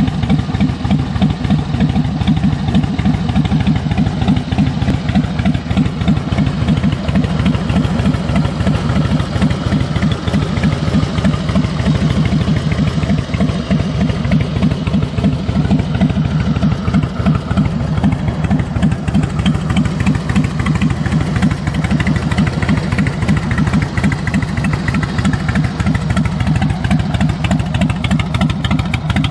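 2003 Harley-Davidson FXDL Dyna Low Rider's Twin Cam 88 V-twin idling steadily through Screamin' Eagle exhaust, a fast, even run of deep exhaust pulses.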